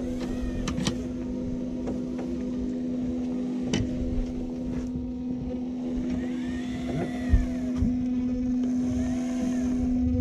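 Boat's outboard motor running steadily, a constant hum, with a few knocks and a thump against the hull.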